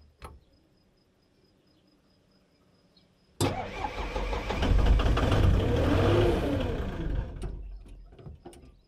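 Komatsu PW30 wheeled excavator's diesel engine cranked on the starter and catching suddenly about three seconds in. It runs for about four seconds, rising and then falling in pitch, before it dies away. It is starved of fuel: the owner finds he had left the fuel turned off.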